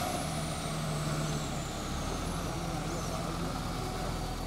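Large truck's engine running steadily at a low pitch, with a faint high whine slowly sinking in pitch.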